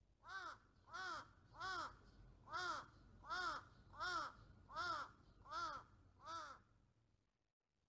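A crow giving its ordinary caw: nine evenly spaced calls, each rising then falling in pitch, about one every three-quarters of a second, ending about six and a half seconds in.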